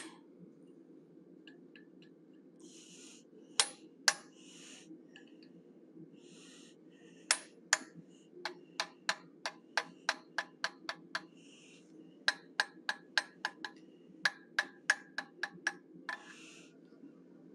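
Hammer tapping a small curved chisel to cut nostrils into a forged steel bear head set in the anvil's hardy hole: a few single strikes, then two runs of quick, even taps at about four a second.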